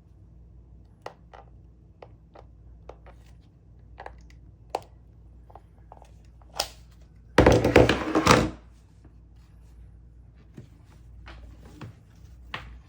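Hands handling the plastic housing of a battery-pack jump starter: scattered small clicks and taps, then a loud clatter lasting about a second, about seven and a half seconds in.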